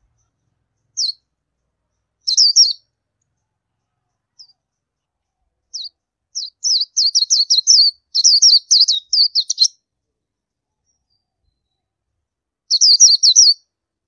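Oriental white-eye calling: high, thin chirps, a single note about a second in, a short burst around two seconds, a long rapid string of chirps from about six to ten seconds, then another short burst near the end.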